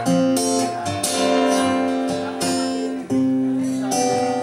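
Steel-string acoustic guitar played solo, picked and strummed chords struck a second or so apart, each left to ring.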